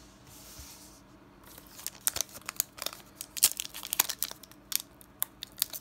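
Foil-plastic Pokémon TCG booster pack wrapper being torn open by hand: after a quiet start, a run of sharp, irregular crinkles and tearing crackles begins about a second and a half in, thickest near the end.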